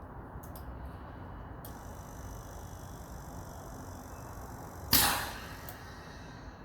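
Steady low background hum with a faint high-pitched whine coming in about two seconds in, and one loud, sharp knock about five seconds in that dies away quickly. No engine is heard running.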